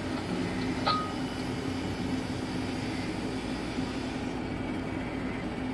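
Steady hum inside a Comansa 290 tower crane's operator cab, with one low steady tone under it; a single short click about a second in.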